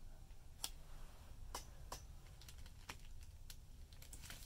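Faint, scattered little clicks and crinkles of a paper sticker being peeled from its backing and pressed down onto a kraft paper envelope.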